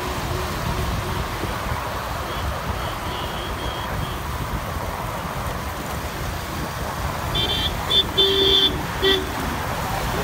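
Steady outdoor street noise with a low rumble, broken about seven seconds in by four or five short horn toots in quick succession.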